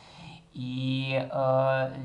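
A man's voice drawing out two long vowel sounds at a nearly level pitch, starting about half a second in, with a brief break between them.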